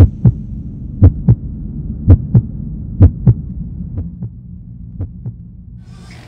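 Heartbeat sound effect: six double thumps (lub-dub) about once a second over a low steady hum. The last two beats are fainter, and the hum fades out near the end.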